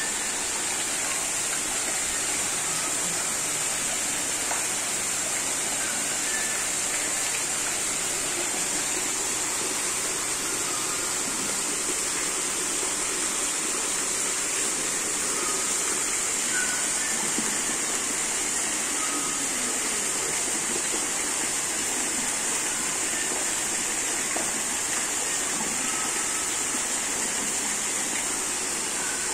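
Artificial waterfall pouring down a rock wall into a pond: a steady rush of falling water, with a constant high hiss above it.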